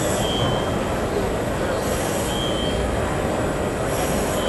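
PCD drill in a machine drilling holes through a composite part: a steady noisy running sound with a short high-pitched squeal about every two seconds.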